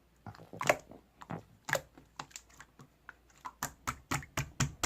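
An irregular run of short, light clicks or taps, about three or four a second, like typing on a keyboard.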